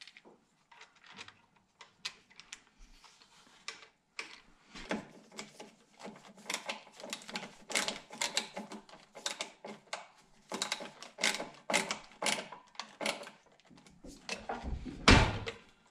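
Hand screwdriver turning screws into the plastic handle housing of a DeWalt chop saw: a run of quick, irregular clicks and scrapes, with a louder knock near the end.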